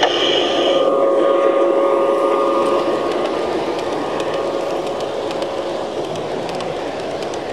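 G-scale garden model train passing close by on its track: a running rumble with light clicks from the wheels, slowly fading as the train moves away. A steady high tone stops just under a second in.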